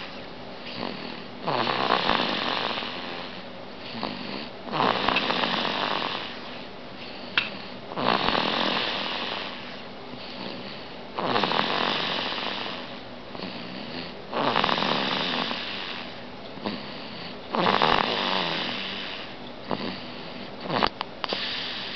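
A baby snoring: seven long snores about three seconds apart, each starting loud and fading away.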